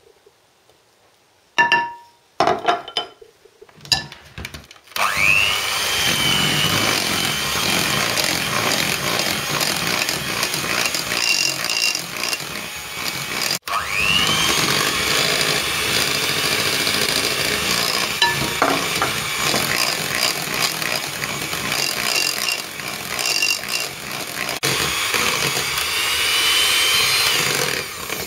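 Electric hand mixer beating eggs into creamed butter and sugar in a ceramic bowl, its motor whirring steadily. It follows a few sharp knocks and starts with a rising whine about five seconds in, and again with a rising whine about halfway through after a brief break.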